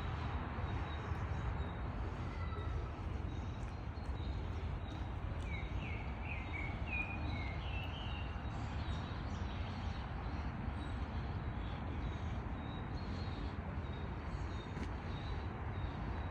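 Steady low outdoor background rumble, with a songbird chirping a quick run of short, sliding notes about five to eight seconds in.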